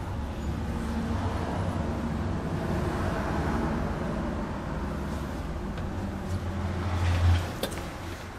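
Nissan Diesel Condor truck's diesel engine idling with a steady low hum, swelling louder about seven seconds in and then dropping away, followed by a click.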